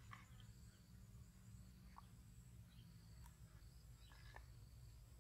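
Near silence: faint steady high trilling of insects, with a few soft small clicks as eggshell is picked off a roasted egg by hand.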